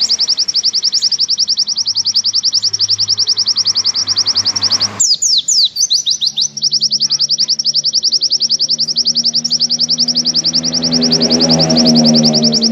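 White-eye (pleci) singing its long rapid trill ('nembak panjang'): a fast, even run of high notes. About five seconds in it breaks for a few steeply falling notes, then the trill resumes.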